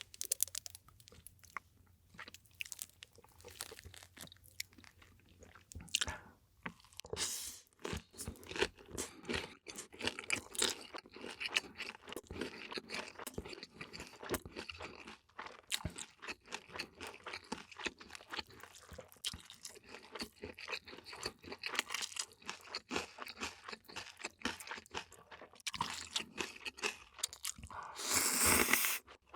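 Close-miked chewing and crunching of food in a mukbang, with many irregular crisp bites and chews. Near the end a louder, longer rushing sound lasts about a second.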